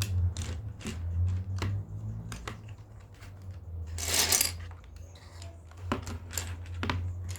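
Plastic keycaps being fitted by hand onto a mechanical keyboard's switches: scattered sharp clicks, with a louder scraping rustle about four seconds in, over a low steady hum.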